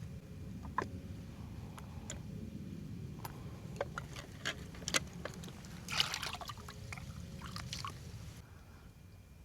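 Light splashing and trickling water with scattered small clicks and taps, and one short splash about six seconds in, over a steady low rumble.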